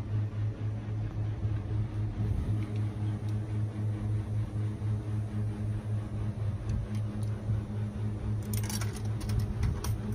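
Steady low mechanical hum with a slow pulse. Near the end comes a quick run of sharp metallic clicks and clinks as coins are fed into a water vending machine's coin slot.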